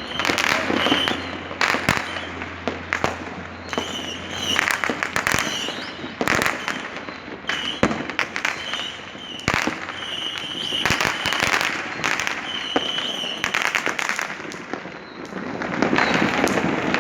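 Many fireworks and firecrackers going off all around: a dense stream of bangs and pops over continuous crackling, with short high whistles cutting through now and then.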